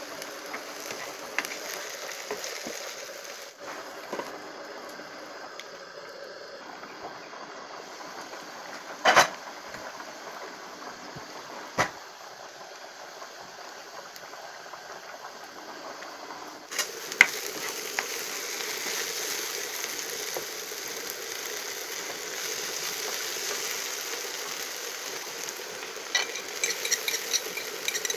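Chopped okra frying in oil in a pan, a steady sizzle that grows louder about two-thirds of the way through. Two sharp knocks come about a third of the way in, and near the end a spatula clicks and scrapes against the pan as it stirs.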